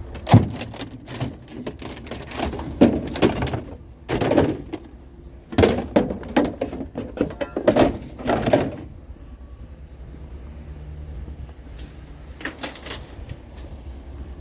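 Yard tools being handled and loaded, a run of knocks, thunks and clatter for about nine seconds, then quieter with one more faint knock.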